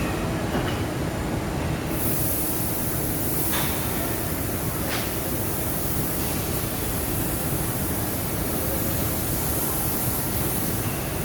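Steady, loud machinery noise: a dense rumble with hiss, and a higher hiss that comes in about two seconds in, with a couple of faint clicks.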